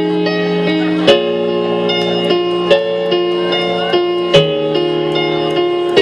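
Keyboard backing track, piano-like notes over a held bass note, played over PA speakers, with a sharp percussive hit roughly every second and a half.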